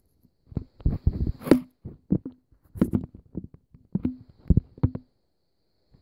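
A string of sharp plastic knocks and clicks, about a dozen, some with a short low ring, as the front blade housing of a Bostitch QuietSharp Glow electric pencil sharpener is handled and worked off its body. The clicks stop about a second before the end.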